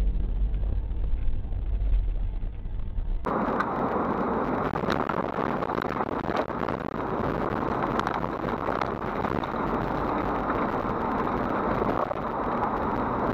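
Dense blizzard wind blasting against a dash camera's microphone, a loud, even rushing noise with scattered crackles. A low rumble from a car on the road comes before it, cut off suddenly about three seconds in.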